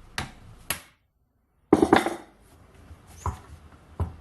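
Ball peen hammer striking a manual impact driver, a series of sharp metallic blows with a louder cluster of knocks just after a brief dead silence about a second in. The blows are driving out a very tight bolt.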